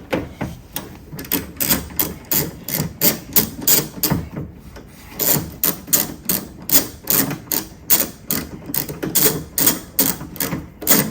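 Hand ratchet wrench clicking as it is worked back and forth to loosen a door-handle bolt: a run of sharp, even clicks, about three a second, with a short pause about four seconds in.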